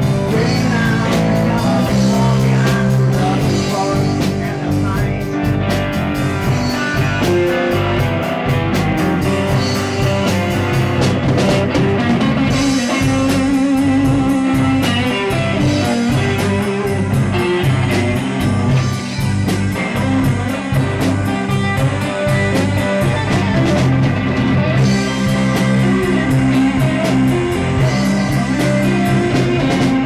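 Live rock band playing: electric guitar, bass guitar, keyboard and drum kit, with a steady drum beat.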